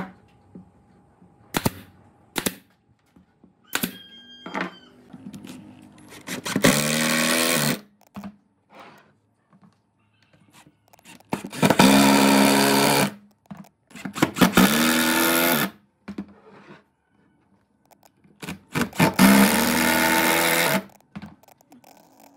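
Cordless impact driver driving screws into wood in four bursts of one to two seconds each, a motor whir with a fast hammering rattle. A few sharp wooden knocks come first, as the pieces are set in place.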